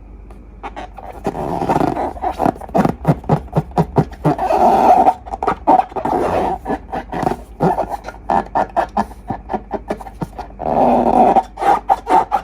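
Slime being squeezed and worked by hand close to the microphone: wet squelching with many sharp clicks and pops, in irregular surges that start about a second in.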